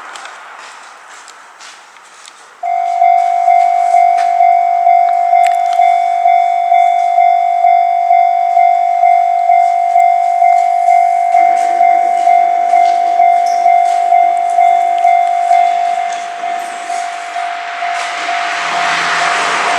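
Japanese railway level crossing's electronic warning bell switching on suddenly about two and a half seconds in and ringing steadily at about two strokes a second. Near the end an electric train's rushing noise swells as it nears and passes the crossing, under the still-ringing bell.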